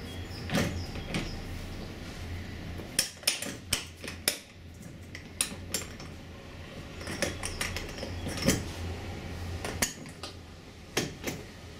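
Stainless-steel transom wheel legs and mounting brackets clinking and clicking against each other as a wheel is fitted into its transom mount: a scattered series of short metallic clicks and clanks.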